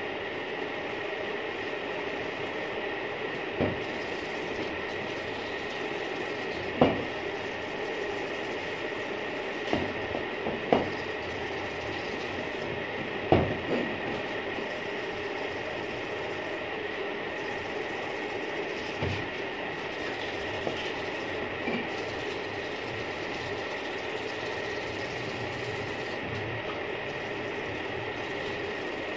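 Steady machine hum with a high whine held throughout, broken by a few light knocks of the metal brake plate being handled and wiped on the table, the loudest about seven and thirteen seconds in.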